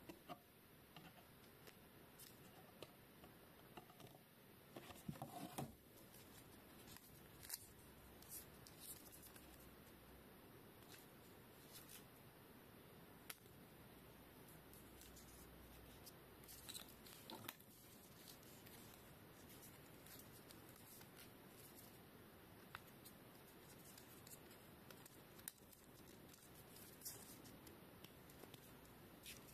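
Faint, scattered clicks and light plastic rustling as a GoPro HERO12 Black action camera is handled, with a short cluster about five seconds in and a few sharper single clicks after that.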